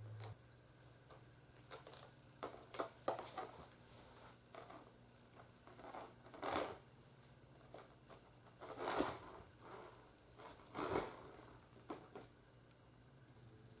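Soft, scattered rustling and scratching of fabric as a kitten grabs and bites a cat teaser wand on a person's lap, with several louder rustles spread through.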